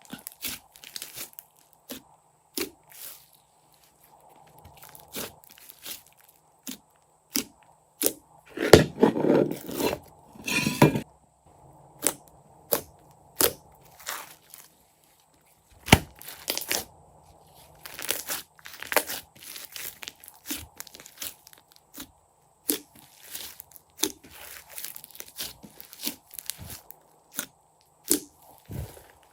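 Crunchy slime being worked, giving scattered crackles and pops, with a louder, denser stretch of crunching about nine to eleven seconds in.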